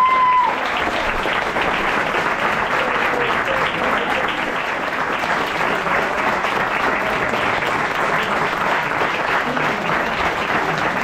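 Audience applauding steadily, with a held shout from the crowd ending about half a second in.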